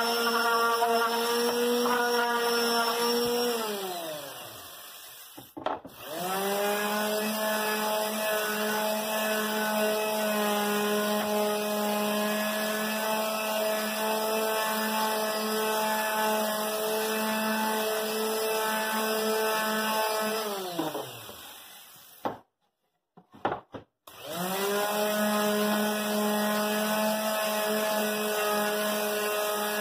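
Handheld electric sander running on wood with a steady motor whine. Twice it is switched off and spins down, falling in pitch, then starts up again after a second or two.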